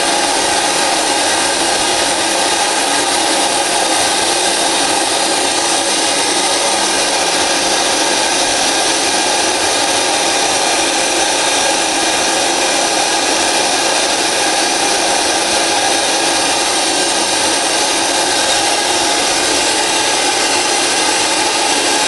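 Compressed-air-operated wet and dry vacuum cleaner running steadily: a loud, even hiss of rushing air as its brush nozzle sucks spilled flux powder off the floor.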